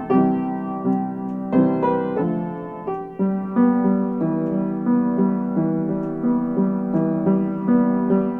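Piano music: a calm melody of struck notes and chords, each note fading after it is played.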